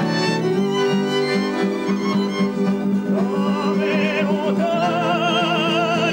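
Violin playing a tune over a steady low accompaniment; about five seconds in, long notes with wide vibrato come in.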